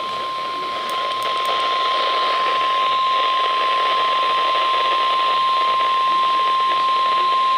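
NOAA Weather Radio 1050 Hz warning alarm tone: one steady high-pitched tone over a bed of radio static hiss. The tone signals that a spoken emergency warning, here a severe thunderstorm warning, is about to follow.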